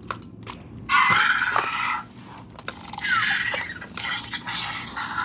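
Interactive toy baby velociraptor (Primal Pal Blue) giving electronic raptor screeches through its small speaker: three raspy calls, the first about a second in and the loudest, the second sliding down in pitch.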